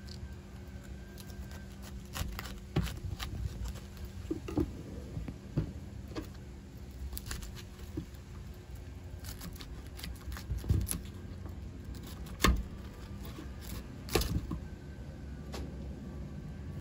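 Small knife cutting a head of cauliflower into florets on a plastic cutting board: irregular crunches and snaps as stems are cut and florets pulled apart, with taps of the blade on the board, over a steady low hum.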